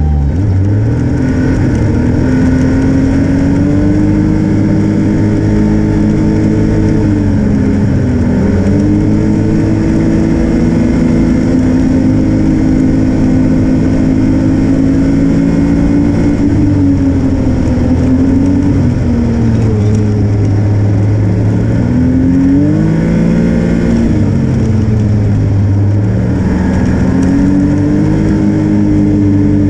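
Snowmobile engine running along a trail. Its pitch climbs and falls several times as the throttle opens and eases, with drops about eight seconds in, around twenty seconds in, and again near the end.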